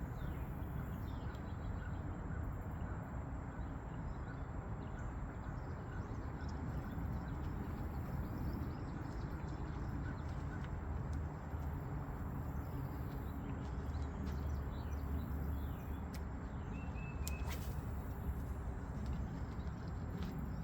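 Steady wind buffeting the microphone, a low rumbling rush, with a few faint bird chirps over it.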